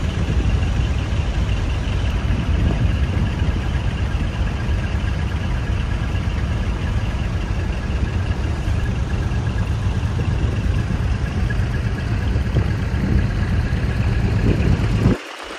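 Large diesel truck engine idling steadily. The sound drops away abruptly near the end.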